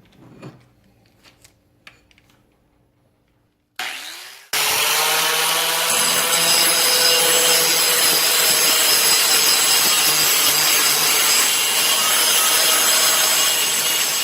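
A few faint handling clicks, then an angle grinder starts up about four seconds in and grinds steadily with a high whine, its disc taking the forge scale off a Damascus steel billet.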